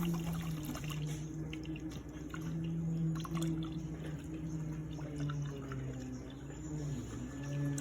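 GE refrigerator's door water dispenser running a stream of water into a container, now that a filter is installed again. A steady low hum runs underneath.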